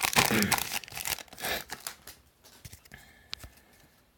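A trading card pack wrapper being torn open and crinkled, thinning out about a second and a half in, followed by quieter handling with a single faint click.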